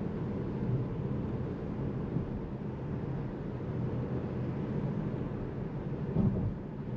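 Steady low rumble of tyre and road noise heard inside the cabin of a Seres 3 electric SUV on the move, with no engine sound. A short bump about six seconds in.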